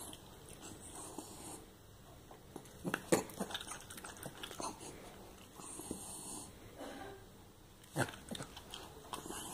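Small dog snapping its jaws on strands of cooked zucchini as it grabs them from fingers, with sharp snaps about three seconds in and again near the end, and its breathing heard between the bites.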